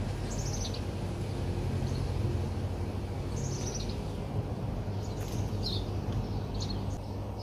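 Small birds chirping in short, quick phrases a few seconds apart, over a steady low rumble of outdoor background noise.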